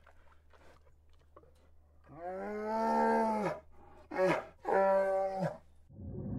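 An animal's drawn-out pitched calls: a long one of about a second and a half starting about two seconds in, then a short one and another of about a second, each rising and falling in pitch. Near the end a rush of steady noise swells in.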